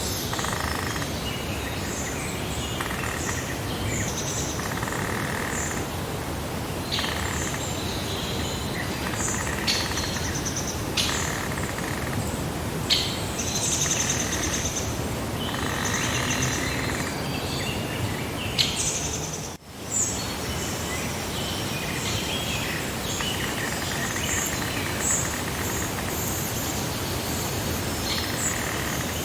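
Several birds chirping and calling, many short calls coming and going, over a steady hiss of outdoor ambience. The level drops out briefly about two-thirds of the way through.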